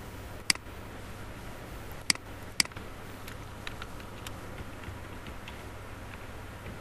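Three sharp computer mouse clicks, the last two about half a second apart, then a run of faint, quick keyboard key taps as a password is typed, over a steady low hum.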